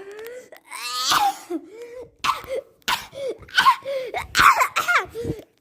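A person coughing in a long fit, about ten coughs in quick succession.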